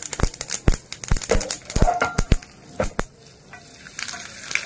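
Sesame and mustard seeds popping and crackling in hot oil in a frying pan as a tempering, with many sharp pops for about three seconds. The pops then thin out to a softer sizzle as a spoon stirs the seeds.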